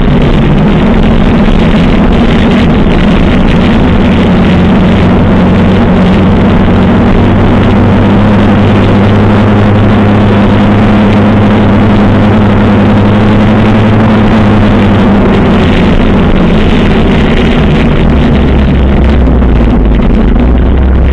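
A 1985 Suzuki GS700ES motorcycle's air-cooled inline-four engine running at a steady cruising pace, heard from on board the bike. The engine note holds level and shifts slightly about fifteen seconds in.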